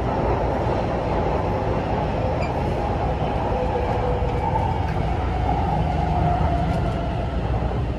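Taipei Metro C341 subway train running through a tunnel, heard inside the passenger car: a steady rumble of wheels and running gear, with a faint whine that slowly falls in pitch from about halfway through as the train approaches the station.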